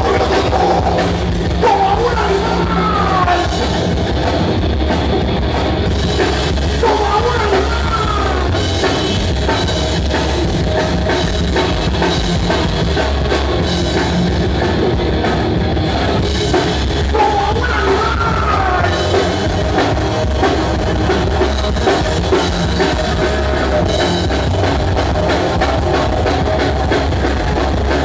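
A rock band playing live and loud: pounding drum kit, electric guitars and bass, with a singer's voice at times.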